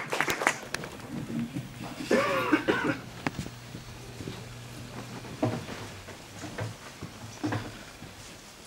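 Audience applause thinning out and stopping, then a theatre audience settling with scattered small knocks and rustles and a short vocal sound, like a cough, about two seconds in.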